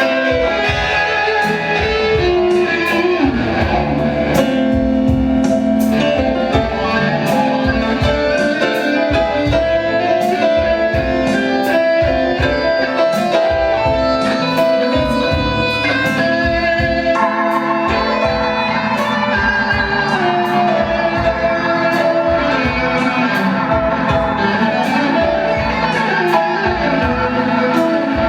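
Live band playing an instrumental passage without vocals, led by guitar over keyboards, with a steady beat of regularly spaced percussive hits.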